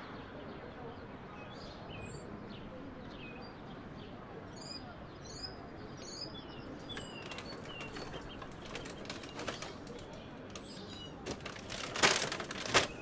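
Small birds chirping in short, high notes over a steady background hiss. About eleven seconds in comes a rapid flutter of sharp clicks, loudest about a second later, like wings flapping on take-off.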